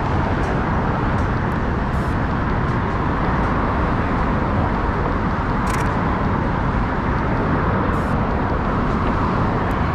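Steady city street traffic noise, with two brief high hisses about six and eight seconds in.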